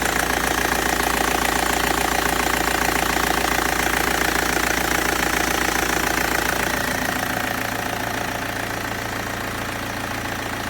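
BMW E46 320d's M47 four-cylinder turbodiesel idling steadily, running again after its Bosch VP44 injection pump was replaced. It settles slightly quieter about two-thirds of the way in.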